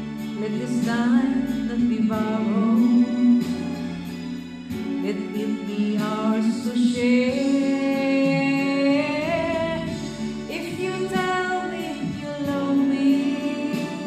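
Karaoke love ballad: a woman's voice singing a melody into a handheld karaoke microphone over a backing track with a steady beat.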